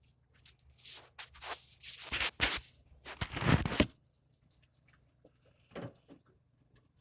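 Handling and rummaging noise while reaching for tools: a run of rustling scrapes and clatters, loudest about three seconds in, then a few small clicks.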